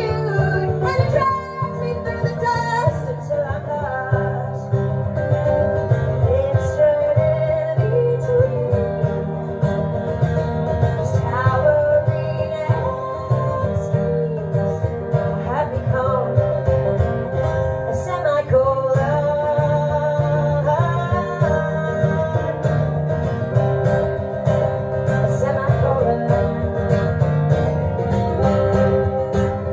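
A woman singing through a microphone while playing an acoustic guitar, a live solo song.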